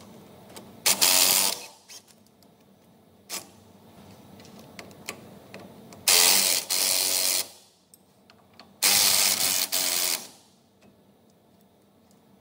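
Cordless mini impact wrench hammering, undoing the brake caliper slider bolts. It runs in three bursts: a short one about a second in, then two longer ones of over a second each later on.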